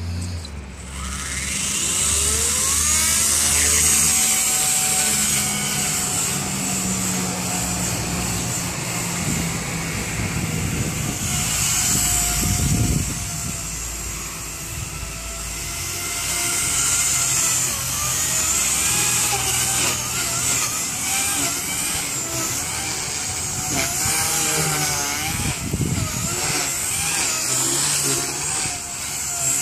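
Blade 130X electric micro RC helicopter flying: its motors and rotor blades whine steadily, spooling up in the first couple of seconds, then the pitch rises and falls continually as the throttle changes in flight.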